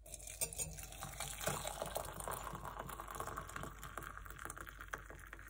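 Hot water poured in a steady stream from a kettle into a ceramic mug with a spoon in it, the splash and gurgle of the mug filling.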